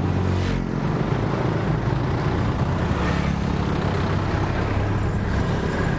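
Street traffic: motorbikes and cars passing with their engines running, a steady mixed hum of traffic.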